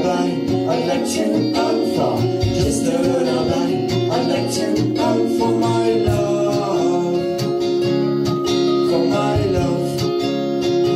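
Acoustic pop band playing: strummed acoustic guitar and ukulele, with a woman and a man singing.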